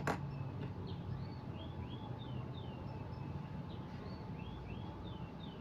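Small birds chirping over and over, short curved calls that come in little clusters over a faint steady hum, with a single sharp click right at the start.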